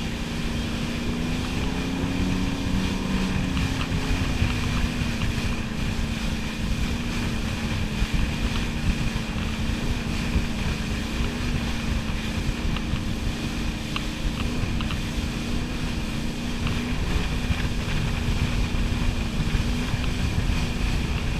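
Wakeboard boat's engine running steadily at speed while towing a tube, its drone wavering slightly in pitch, under heavy wind buffeting on the microphone and the rush of the wake.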